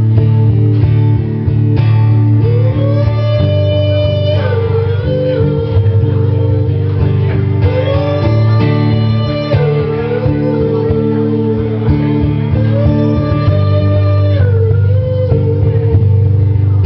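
Live instrumental break of a guitar song: guitar playing a steady chord pattern under a melody line that glides up into a long held note three times, about five seconds apart.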